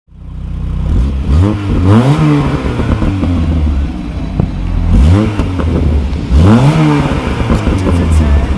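Mk1 Volkswagen Golf GTI 1.6's four-cylinder engine heard at the exhaust, idling and free-revved three times, each rev rising sharply and dropping back to idle.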